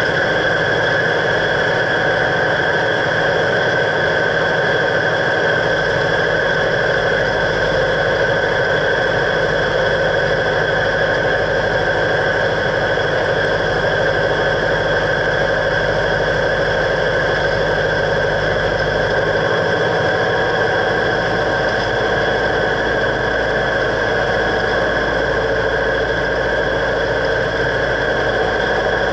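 Cessna 172's piston engine and propeller droning steadily, heard from inside the cockpit.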